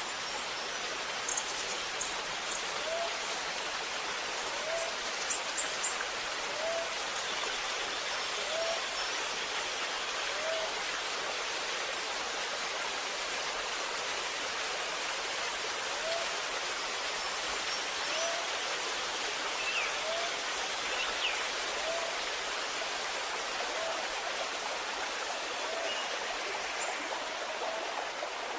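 Waterfall water rushing with a steady hiss. A short rising call repeats about every two seconds over it, and a few sharp high chirps come in the first few seconds.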